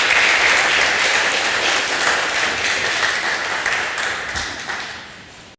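Audience applauding: steady clapping that fades over the last second or so and then cuts off abruptly.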